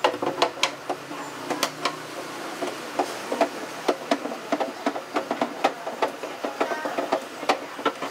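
A screwdriver working screws loose from the plastic rear housing of a mini hi-fi system: sharp, irregular clicks and taps, several a second.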